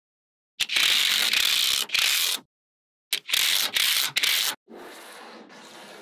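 Small magnetic balls rattling and clicking against each other in dense runs: two loud runs of about two seconds each, with a short gap between them, then a softer rasping run near the end.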